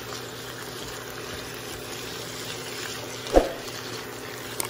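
Chayote squash strips sizzling in a nonstick wok as they are stir-fried, the silicone spatula pushing them around, with one louder thump of the spatula against the pan about three and a half seconds in.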